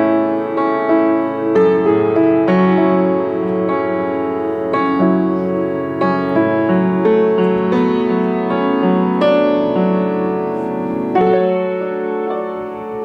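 Background music: piano playing a steady sequence of struck notes and chords.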